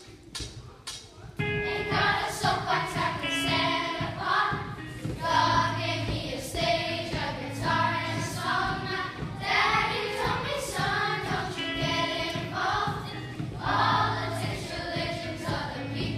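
A choir of primary-school children singing a song over musical accompaniment. The music starts about a second and a half in, after a few faint knocks.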